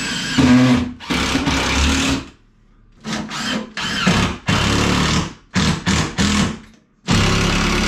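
Cordless driver running in several one-to-two-second bursts with short stop-start pulses, driving screws through an upper kitchen cabinet into the wall studs.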